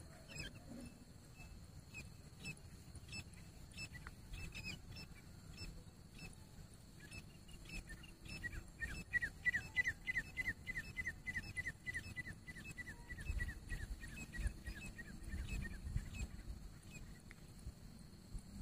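Grey francolin calling: a few scattered notes at first, then a fast run of short, falling notes, about three a second, for some seven seconds, dropping slightly in pitch as it goes. A low rumble runs beneath.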